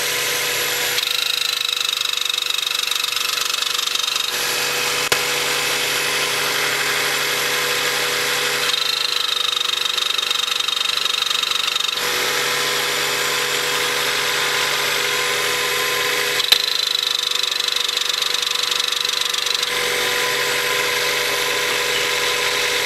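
1993 Acura Integra at idle with a recurring high whine that comes on for about three seconds roughly every eight seconds, plus two sharp clicks. The noise is the ABS modulator, which the owner found to be its source.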